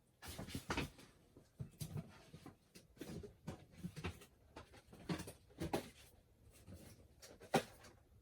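Small cardboard blind boxes being picked up and handled: irregular rustling and light scrapes and knocks, with one sharper click near the end.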